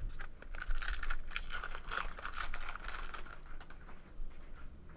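Trading cards being handled and flipped through by hand: a quick run of dry clicks and rustles that thins out near the end.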